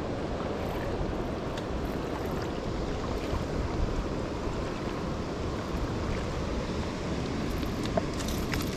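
Steady rushing noise of wind on the microphone, with a few faint clicks.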